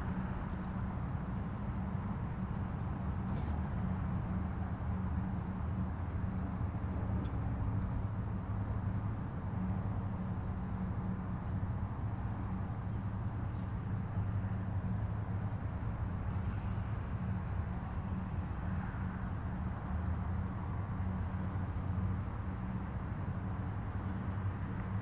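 Steady engine and tyre noise inside a Honda City's cabin while cruising on an expressway, with a low drone.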